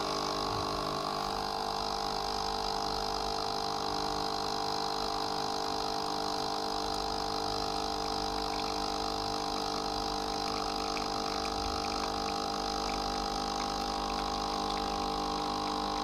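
Noon dual-function capsule coffee machine's water pump running steadily with an even hum, pushing water through on a short cleaning cycle with no capsule or powder loaded.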